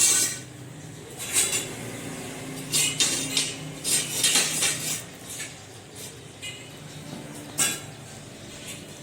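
Metal clinking and clanking as iron pieces are handled and struck, in irregular sharp hits a second or more apart, each with a bright ring.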